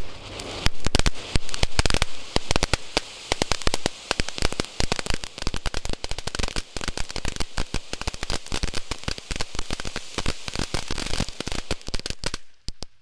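Magmaniacs cone fountain firework spraying sparks, with dense rapid crackling over a hiss, then stopping suddenly near the end.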